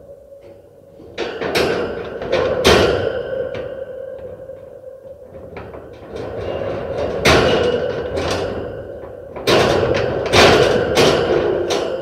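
Metal cage being struck and rattled: three bouts of clanging knocks, about a second in, around the middle and near the end, each ringing on with a metallic tone.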